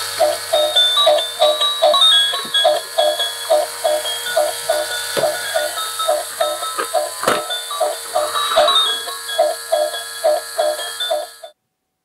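Battery-powered toy vacuum cleaner running: a small electronic tune with a beeping pulse about two or three times a second over the steady hiss of its little motor, with a couple of knocks. The sound cuts off suddenly near the end.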